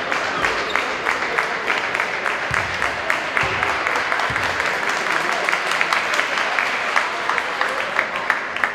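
Spectators clapping with many quick, irregular claps, with crowd voices mixed in.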